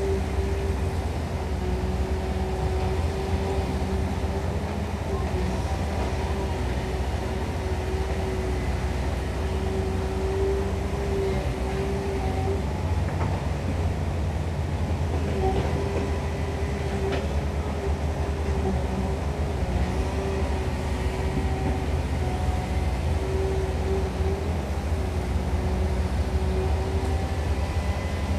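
Caterpillar long-reach excavator working in mud: its diesel engine runs with a steady low drone under a steady whine from the hydraulics. The whine drops out for a few seconds midway.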